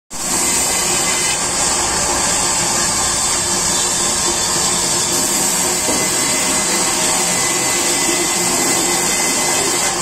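Sawmill band saw running steadily while planks are fed through it by hand, the blade ripping the wood lengthwise. A loud, even noise with a strong high-pitched hiss over it.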